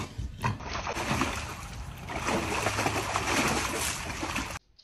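A dog splashing about in a small plastic paddling pool, with water sloshing and spattering continuously. The sound cuts off suddenly near the end.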